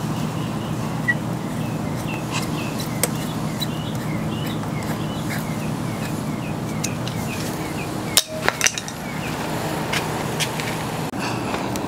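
Scattered light clicks and knocks of hand work refitting plastic side fairing panels on a motorcycle, over a steady low hum. Rows of short high chirps repeat rapidly through the first two-thirds.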